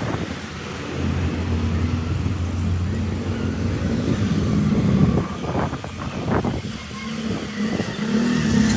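A vehicle engine running with a steady low hum, with a few short knocks about two-thirds of the way through.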